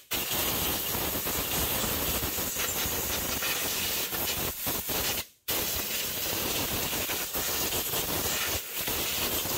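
Compressed-air blow gun hissing steadily as it blasts loose dirt off a mower engine's carburetor. It cuts off briefly about halfway through, then starts again.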